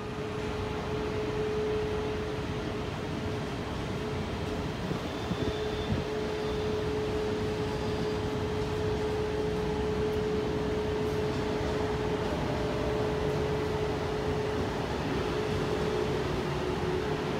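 Electric double-deck passenger train running slowly along a station track: a steady rumble with one constant droning tone, and a couple of brief knocks about five to six seconds in.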